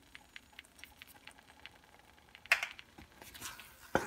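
A wooden spatula stirring thick, ghee-glazed semolina (rava kesari) in a pan: faint light ticking at first, then a sharp wet scrape about two and a half seconds in, softer squishy stirring, and a knock of the spatula near the end.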